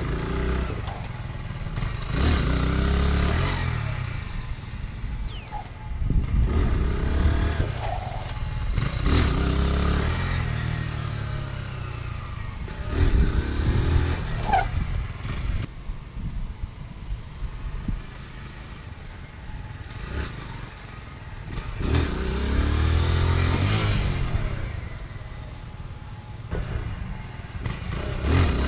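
Small single-cylinder motorcycle engine repeatedly revving up hard and dropping back, several pulls in a row as the bike accelerates and eases off.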